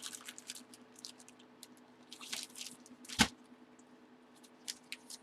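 Faint handling noises of trading cards and their packaging: scattered small rustles and clicks, with one sharper tap about three seconds in.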